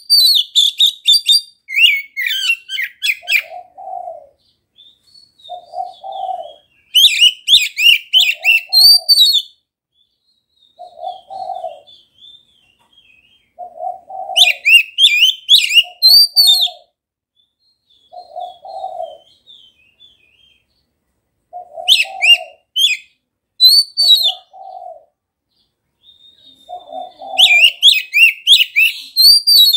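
Oriental magpie-robin (kacer) singing in loud bursts of rapid, varied high whistles and chatters, five phrases a few seconds apart with faint twittering between. Underneath, a dove coos a low note over and over, about every second and a half.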